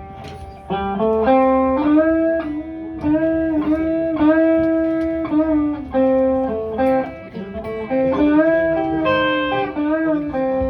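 Electric guitar playing a bluesy single-note lead line, with held notes and upward string bends.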